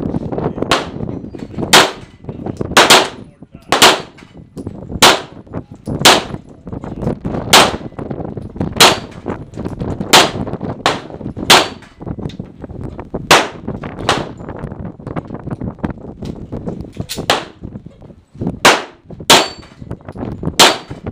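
Centerfire handgun firing about seventeen shots at a steady pace of roughly one a second, with a pause of about three seconds two-thirds of the way through. The shots are knocking down steel plates on a plate rack, which clang when hit.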